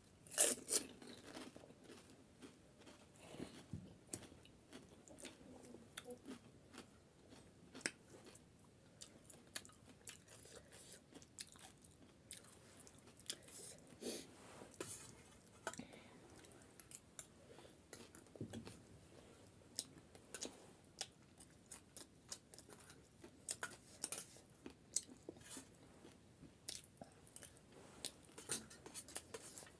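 Close-miked chewing and crunching of chatpate, Nepali spiced puffed-rice snack: faint, irregular small crunches and clicks from mouth and food.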